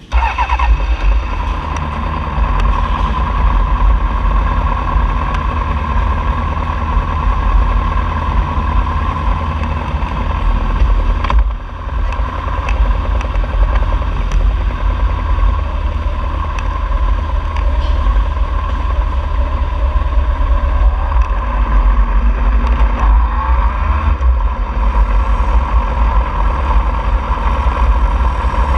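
Honda CBR600RR's inline-four engine starting up and running steadily at idle, heard close up through an on-bike camera. Near the end it pulls away at low speed.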